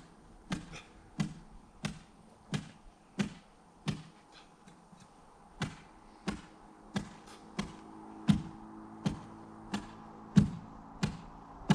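Ice spud chopping into frozen pond ice to open a fishing hole: sharp strikes about every two-thirds of a second, with a short pause a little before the middle.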